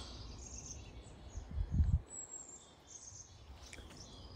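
Backyard ambience: small birds chirping now and then, over a low rumble on the microphone that swells briefly a little before halfway.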